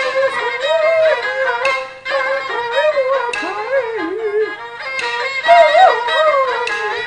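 Peking opera accompaniment: a bowed fiddle plays a sliding, ornamented melody, punctuated by a few sharp percussion strokes.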